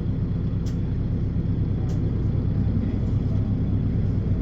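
A vehicle's engine and road noise: a steady low drone with a couple of faint clicks.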